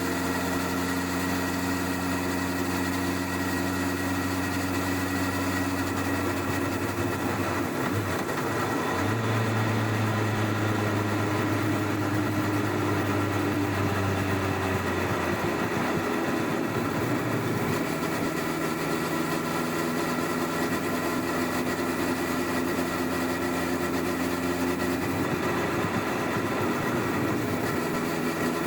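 Honda CBR1100XX Blackbird's inline-four engine, on its stock exhaust, running under way, heard from under the rear seat. The engine speed holds steady for stretches, with a few shifts in pitch at about seven to nine seconds in, around the middle, and again near the end.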